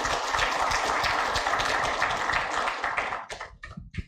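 Audience applause for a panelist's introduction, thinning to a few last claps and stopping near the end.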